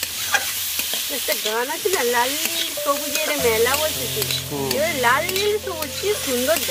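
Chopped vegetables sizzling as they fry in mustard oil in a pan, stirred with a spatula that scrapes and clicks against the pan. Gliding pitched sounds of some other source run over it.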